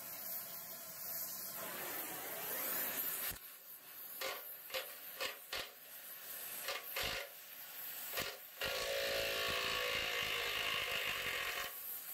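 Gas torch hissing as it heats rusted wheel-centre bolts, then a red cordless impact wrench on the nuts, running in short bursts and then steadily for about three seconds near the end.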